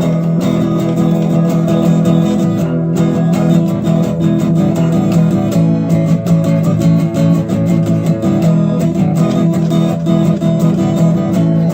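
Guitar strummed steadily in a rhythmic chord pattern, without singing.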